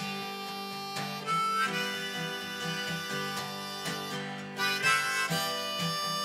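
Harmonica in a neck rack played over a strummed acoustic guitar, a steady tune with a regular beat.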